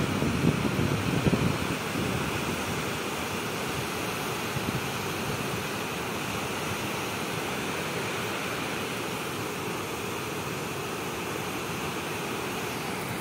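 Wind buffeting the microphone with low gusts for the first couple of seconds, settling into a steady rushing hiss.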